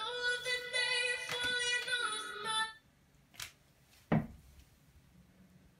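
Music with a high singing voice that cuts off suddenly about three seconds in, followed by a light click and a dull thump.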